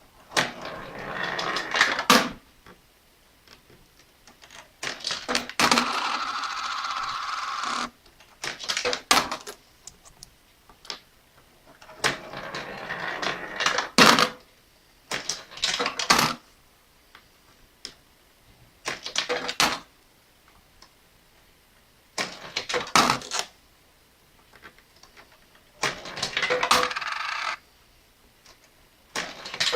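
Coins going one at a time into a homemade Arduino coin-sorting piggybank, about nine in turn. Each makes a short metallic rattle through the sorter and ends in sharp clinks as it lands.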